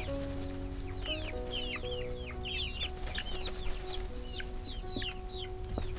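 Young chickens peeping: a string of short, high, falling chirps, over background music with long held notes.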